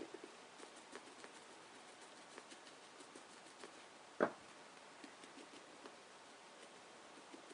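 Faint handling noises of a small paintbrush working on a vinyl doll head, with scattered light ticks and one louder knock about four seconds in.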